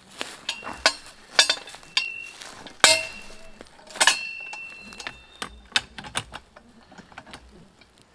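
Metal clanks and clicks of a lever-action T-post puller being fitted to a steel T-post and worked, steel knocking on steel. Several sharp knocks with a short ringing tail, the loudest about three and four seconds in, with lighter clicks between.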